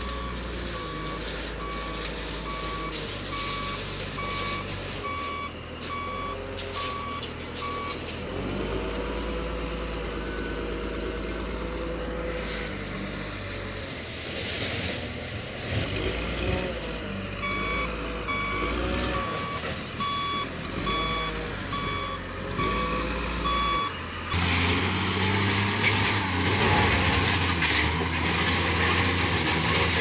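Caterpillar 938G wheel loader reversing, its backup alarm beeping a little over once a second in two spells over the diesel engine, which rises and falls in pitch as it works. About three-quarters of the way through the beeping stops and the loader drives its bucket into a rubble pile: the engine runs under load with a louder rush and grinding of broken concrete and masonry.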